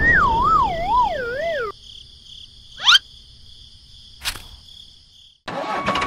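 Cartoon sound effects: a warbling whistle that wobbles and slides down in pitch for about a second and a half, then a quick rising whistle-whoosh and a single sharp click over a faint high steady tone. Engine noise starts again just before the end.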